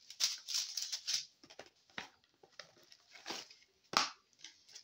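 Plastic sachets of diamond-painting drills crinkling and rustling as they are handled, with scattered light clicks and one sharp crinkle about four seconds in.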